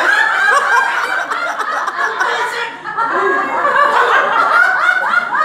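A group of people laughing hard together, many voices overlapping, breaking out right after a joke's punchline.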